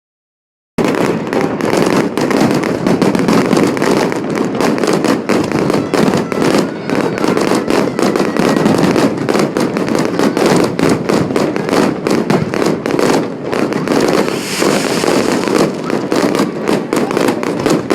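A fireworks display: a dense, continuous run of bangs and crackles, many every second. It starts just under a second in.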